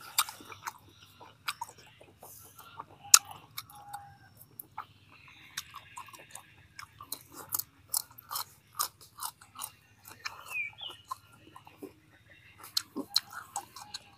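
A person chewing braised pork intestines close to the microphone: moist chewing, smacks and clicks in irregular runs, the sharpest click about three seconds in.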